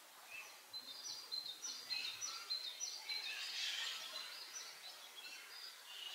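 Small birds chirping and twittering, a series of quick, high, downward-sliding chirps about a second in, then a denser cluster of calls.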